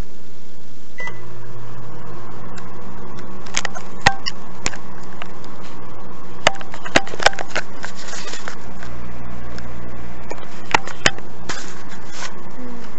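Microwave oven started with a short beep about a second in, then running with a steady low hum. Scattered clicks and knocks sound over it.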